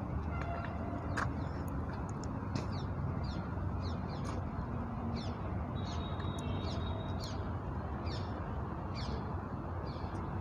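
Birds calling with short, falling chirps, about two a second, over a steady low rumble.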